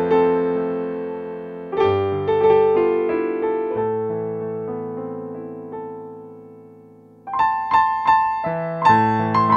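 Background piano music: soft chords struck and left to ring out and fade, then a run of repeated notes beginning near the end.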